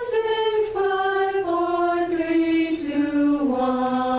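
A chorus singing a descending scale in unison on the counting numbers as a vocal warm-up, stepping down one note at a time and holding the bottom note from about three and a half seconds in. The descent is a little heavy, as the coach hears it.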